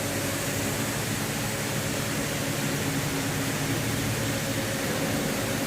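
Steady machinery hum in a rum distillery: a constant rushing noise with a few steady low tones, unchanging throughout.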